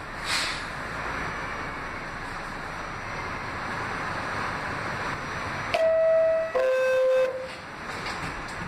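Two-tone door chime of an R46 subway car, a higher tone then a lower one about six seconds in, warning that the doors are about to close, over the car's steady background noise.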